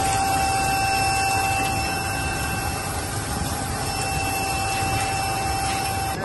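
Fire burning among debris with a steady, loud rushing noise and a constant high tone over it, breaking off abruptly near the end.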